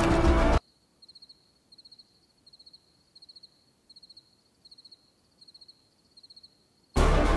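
Music cuts off, leaving a lone cricket chirping: about eight short trilled chirps, one every three-quarters of a second, high-pitched and faint. The music comes back just before the end.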